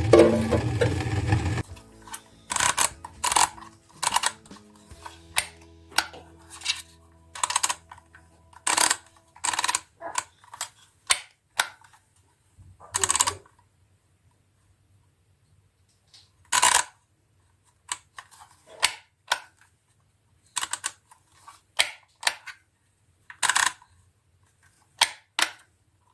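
A loud low hum that cuts off about two seconds in, then irregular clicks and knocks of household items being picked up and set down, with short pauses between them.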